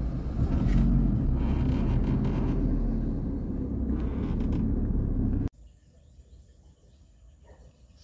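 Car running, heard from inside the cabin: a steady low rumble that cuts off abruptly about five and a half seconds in, leaving only faint outdoor background.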